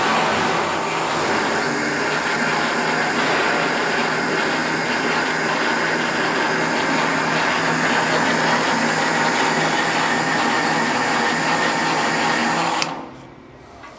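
WEISS WBL290F bench lathe running with its feed engaged for thread turning: a steady mechanical hum and whine of the spindle drive and gearing. About a second before the end it drops suddenly to a much quieter running sound.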